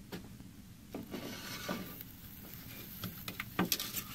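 Handling noises on a wooden desk: light knocks, rubbing and a few sharp clicks as things are moved about and a metal canister is picked up.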